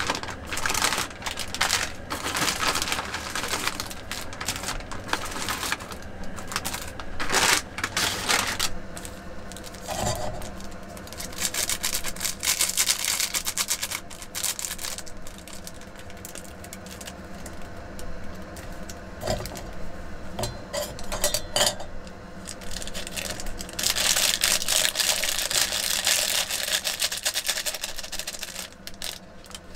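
Plastic and paper food packets crinkling and rustling as they are handled and opened, with scattered small clicks and taps. A longer, louder stretch of crinkling comes near the end as a sachet is torn open over a metal pot.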